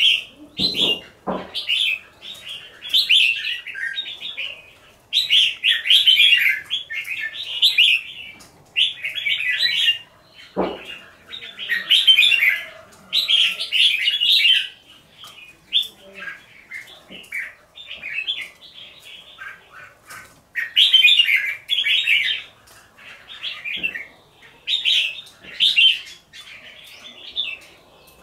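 Caged red-whiskered bulbuls singing, a steady run of short, bright, warbled phrases one after another, each about a second long. There are a few low thumps near the start and about ten seconds in.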